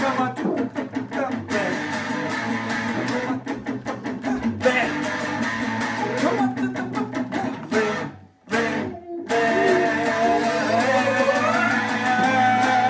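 Rock music led by electric guitar: strummed chords and held notes. The music cuts out briefly about eight seconds in, then carries on.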